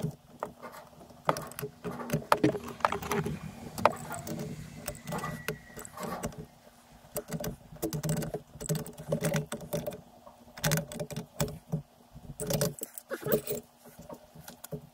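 Metal tools and fittings being handled during gas-pipe and appliance fitting work: irregular clinks, knocks and short rattles.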